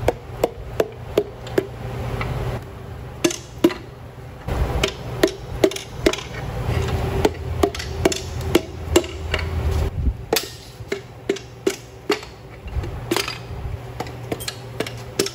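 Hammer tapping in runs of sharp, repeated blows, about two a second with short pauses, driving the pistons and connecting rods out of the cylinder bores of a 5.3 L LS V8 block.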